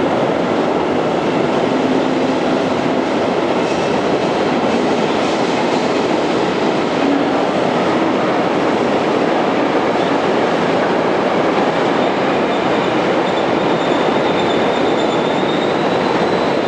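Deutsche Bahn Intercity passenger coaches rolling past on the rails: a loud, steady rumble of wheels and running gear, with a faint high squeal in the second half.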